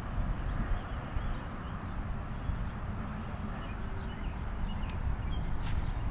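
Wind buffeting the microphone with an uneven low rumble, with faint bird chirps and a couple of sharp clicks near the end.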